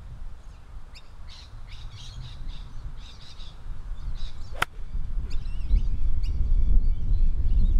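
A golf club striking the ball, one sharp crack about four and a half seconds in, with birds chirping throughout. A low wind rumble on the microphone builds after the strike.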